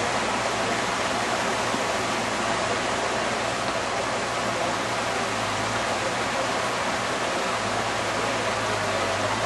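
A steady, even rushing hiss that does not change, with no distinct events.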